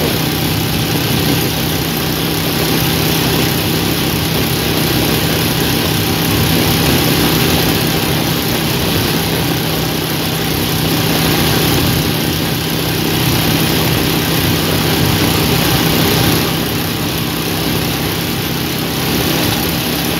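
Motorcycle engine running steadily while riding at speed, with wind and road noise rushing over the microphone.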